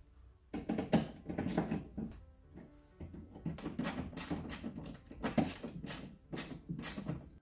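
Small hand ratchet clicking in quick runs as hex screws are driven into the wheel-arch liner, with background music underneath.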